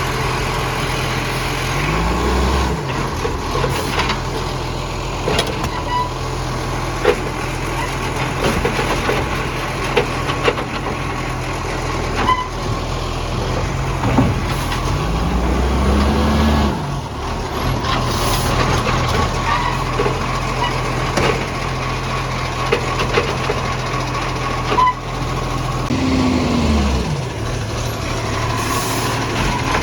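Garbage truck's diesel engine running steadily, revving up and dropping back three times, about two, fifteen and twenty-six seconds in. Sharp ticks run through it throughout, the sound of the truck's exhaust leak.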